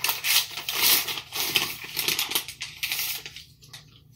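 MRE entrée pouch and plastic flameless-heater bag rustling and crinkling as the pouch is pulled out of the bag, in irregular crackly bursts that die away about three seconds in.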